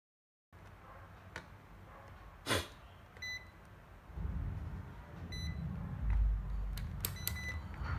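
Handheld digital multimeter giving a few short, high beeps as it is switched on and set, with clicks and knocks from the meter being handled. The loudest sound is a single click about two and a half seconds in.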